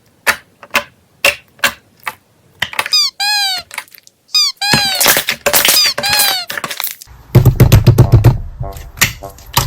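Five sharp clicks or taps, then short, high, warbling tones that rise and fall, and from about seven seconds in, music with a heavy low beat.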